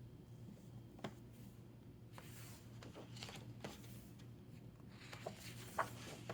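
Faint paper rustles and light clicks from a picture book being handled, over a low steady hum of room tone.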